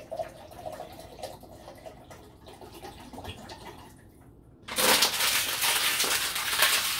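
Water trickling from a plastic water bottle into a glass measuring cup. About five seconds in, a much louder rush of water splashes into a large, empty plastic pitcher.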